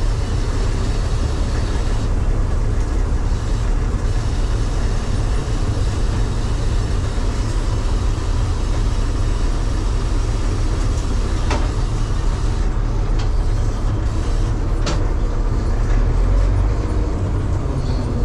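Heavy farm machinery running with a steady low engine rumble and a rattling, clattering haze over it, with two faint sharp knocks about eleven and fifteen seconds in.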